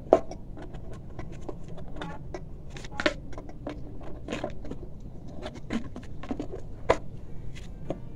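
Handling noise from a plastic electric hot pot body being turned and its internal wiring pushed into place by hand: irregular clicks, taps and light scraping on the plastic housing, with a few sharper knocks.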